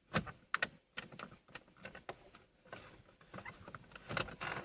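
Plastic ashtray drawer of a Renault Twingo's centre console being pushed and fitted back into its slot: a string of irregular light clicks and knocks of plastic on plastic.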